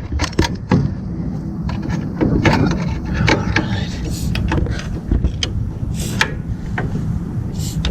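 Metal tools clinking, knocking and scraping on a car's seized drum brake assembly, in many irregular sharp clicks and knocks.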